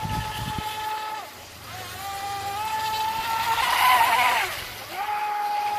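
Electric motor of a homemade rigger RC boat whining at speed. The whine drops away about a second in, climbs back up, and is loudest around four seconds in with a rush of spray and a falling pitch as the boat passes close, then dips briefly and returns.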